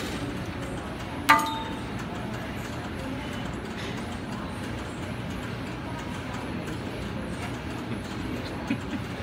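A single sharp metal clank with a short ring about a second in, from the seated cable row machine as the close-grip handle is let go at the end of a set, over a steady background hum.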